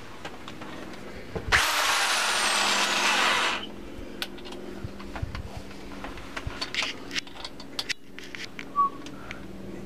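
Electric drill fitted with a hole saw, run briefly with no load for about two seconds before cutting off, followed by small clicks and taps as the bit and chuck are handled.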